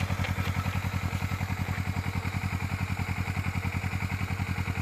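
Kawasaki Ninja 300's parallel-twin engine idling steadily, a low, even, rhythmic exhaust pulse.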